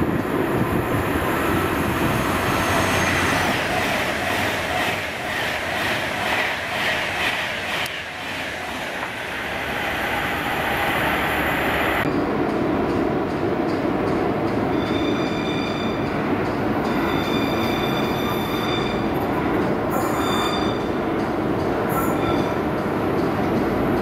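Class 390 Pendolino electric train passing at speed: a loud rush with rhythmic wheel clatter that fades away over the first ten seconds. After a sudden change, another train's running noise is heard, with a high-pitched wheel or brake squeal that comes and goes several times.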